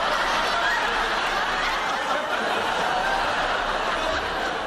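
Studio audience laughing, a sustained wave of laughter that dies down at the end.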